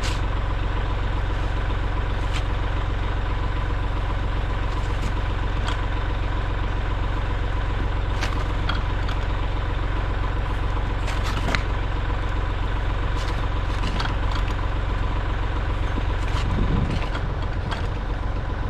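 Kubota L3301 tractor's diesel engine running steadily, with a few faint clicks over it.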